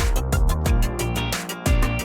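Electronic background music with a steady beat of drum hits over deep bass.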